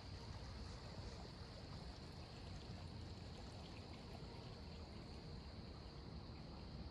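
Faint, steady outdoor ambience: a constant high-pitched drone over a low rumble, with no distinct events.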